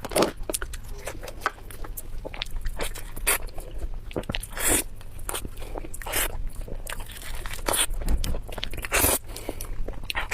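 Close-miked mouth sounds of someone biting and chewing spicy pork belly: irregular wet smacks and clicks.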